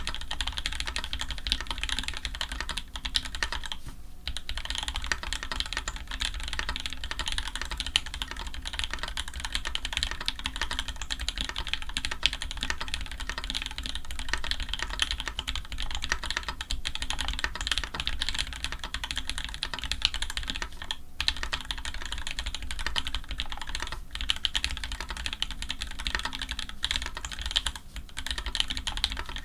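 Fast, continuous typing on a custom mechanical keyboard with lubed Tangerine linear switches on an aluminium plate and GMK ABS keycaps, the keystrokes a rapid stream of clacks broken by a few brief pauses.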